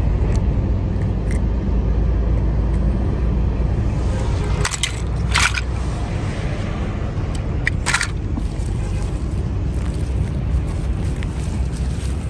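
Wind buffeting the microphone, a steady low rumble, with a few brief clicks about five and eight seconds in.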